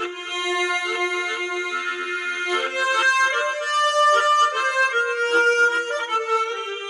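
Harmonica playing a melody in held notes, often sounding several notes together as chords, with no bass or other accompaniment.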